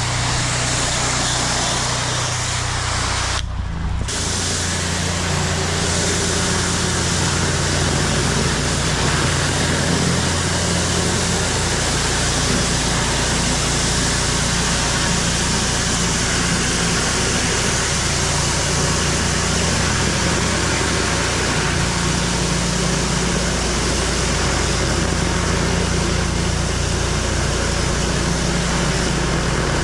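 Pressure washer running steadily: the hiss of the water spray from the wand over the steady drone of the machine's engine. The spray drops out for a moment about three and a half seconds in, then carries on.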